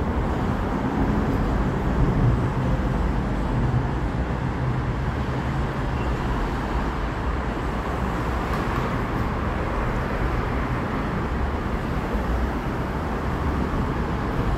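Steady low rumble of background traffic noise, with no distinct events.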